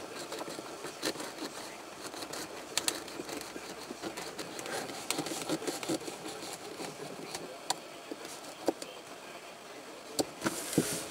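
Craft knife cutting and scraping through vinyl dashboard covering: quiet scratching with scattered small clicks and ticks.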